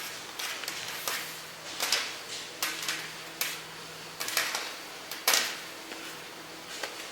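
Jersey fabric rustling and swishing in irregular soft strokes as a top is handled and twisted by hand.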